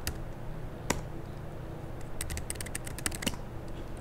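Computer keyboard keystrokes: a single key press at the start and another about a second in, then a quick run of about a dozen keys near the end, over a low steady hum.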